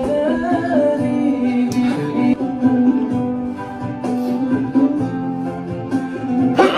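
Music with plucked strings and a singing voice. A short, sharp noisy burst comes right at the end.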